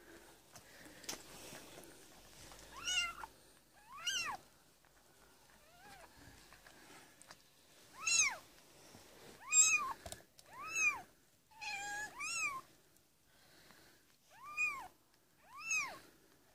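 A cat mewing: about nine short, high-pitched mews, each rising then falling in pitch, two near the start and then coming more often from about halfway.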